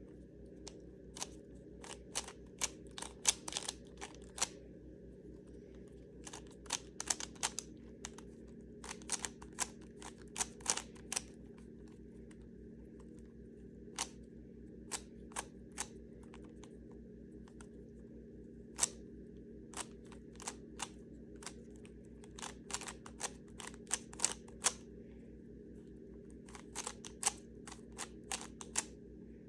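Rubik's Cube being solved: its plastic layers turned in quick flurries of clicking and clacking, separated by short pauses, over a faint steady hum.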